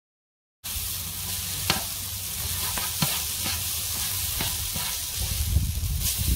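Stir-fried noodles sizzling on a flat teppanyaki griddle, starting about half a second in, with a spatula scraping and knocking against the plate every second or so.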